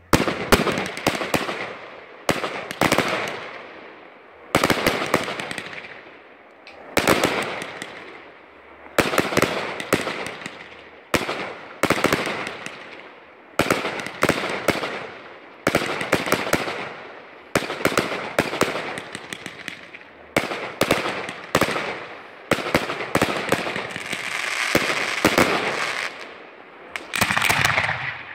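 Fireworks display: shells bang in steady succession, one every second or two, each bang trailing off in crackling.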